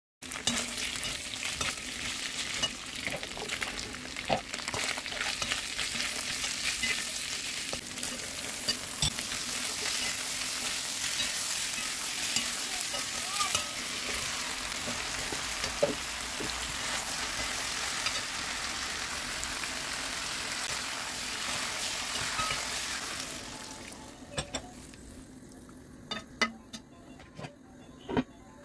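Beef, onion and cherry tomatoes sizzling as they fry in a non-stick pan, with a slotted spatula stirring and scraping through them in many small clicks. About 24 seconds in the sizzling falls away and only a few separate light knocks remain.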